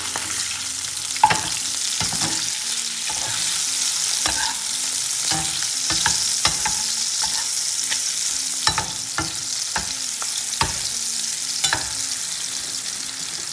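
Pork belly pieces and melted cheese sizzling in their own fat in a frying pan, with a spatula stirring and turning them, giving scattered clicks and scrapes against the pan over a steady sizzle.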